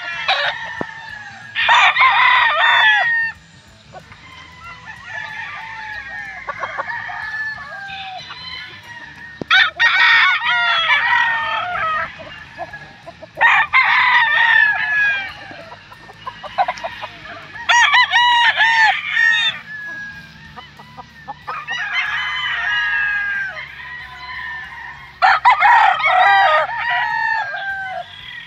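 Several gamefowl roosters crowing one after another, about six loud crows spread through the stretch, some overlapping, with quieter crows and clucks from other birds in between.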